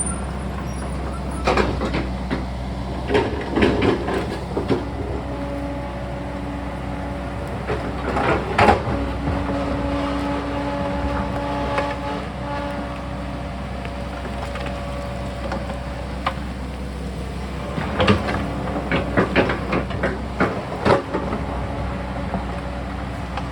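Sany mini excavator's diesel engine running steadily under load, with clusters of knocks and scrapes as the bucket works against rock, a couple of seconds in, around eight seconds in, and again for several seconds near the end.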